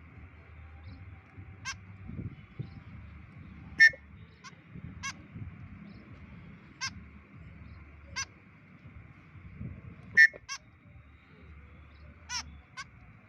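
White-breasted woodswallow (kekep babi) giving short, harsh, nasal calls, about ten of them at irregular intervals; the loudest come about four and ten seconds in. A steady high hiss runs underneath.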